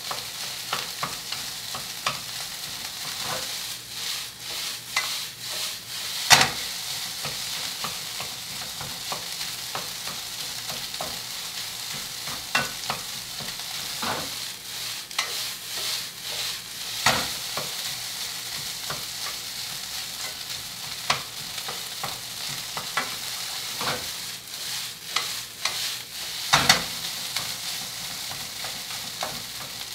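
Meat sizzling as it is stir-fried in a pan, with fat cooking out of it: a steady frying hiss broken by irregular sharp clacks of a cooking utensil against the pan, the loudest about six seconds in and again near the end.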